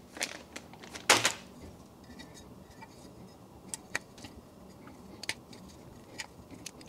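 Handling noise from small rocker switches: a brief plastic-bag rustle about a second in, then scattered sharp little clicks as the switches are pushed into the holes of an aluminium faceplate.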